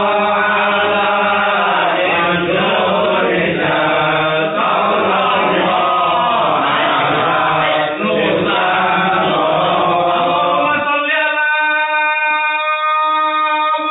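Many voices chanting together in a shalawat-style religious chant. About eleven seconds in, the group drops out and a single note is held.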